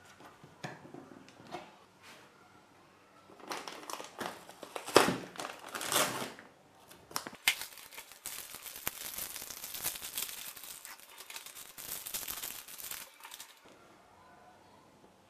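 Plastic packaging bags crinkling and rustling as they are handled: a few loud bursts a few seconds in, then a steadier crackle for about five seconds that dies away near the end.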